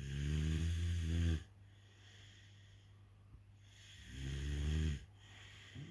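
Snoring: two loud snores, each about a second long and about four seconds apart, with quieter breathing between them. A third snore starts right at the end.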